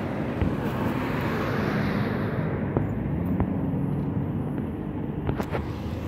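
Steady low rumble of nearby road traffic, with a vehicle engine hum showing through for a few seconds in the middle.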